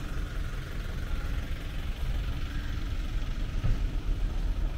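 Steady low outdoor background rumble with no distinct event in it.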